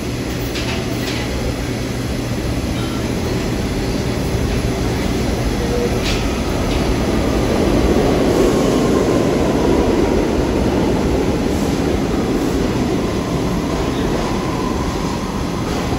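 R62A subway train pulling out of a station, its wheels and motors rumbling louder as it gathers speed and loudest about halfway through. A faint whine slides lower, then holds steady.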